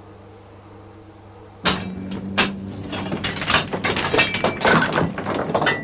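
Pickaxes striking and chipping rock: a dense, irregular run of sharp clinking blows that begins suddenly about a second and a half in, after a faint hum.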